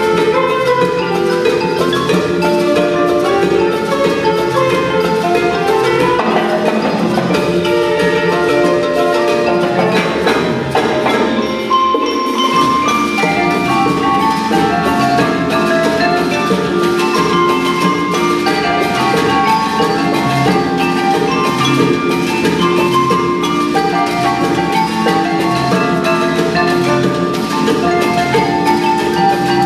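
Percussion ensemble playing on marimbas and other mallet keyboards, with steady repeating patterns. The low end drops out briefly about twelve seconds in.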